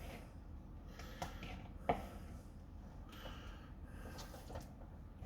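Faint handling noises: a few light knocks and clicks, the clearest about two seconds in, with some soft rustling.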